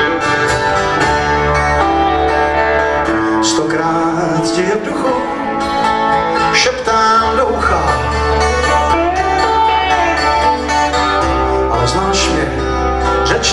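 Live blues band playing: acoustic guitar strumming over electric bass and drums, with a saxophone or voice carrying bending melodic lines.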